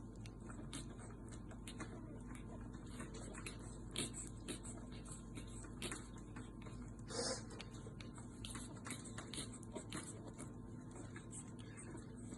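Faint, irregular small clicks and scratches over a low steady hum, with a brief louder scrape about seven seconds in.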